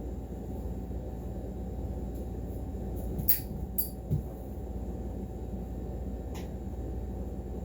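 Steady low background hum with a few short light clicks, a cluster about three to four seconds in and one more about two seconds later.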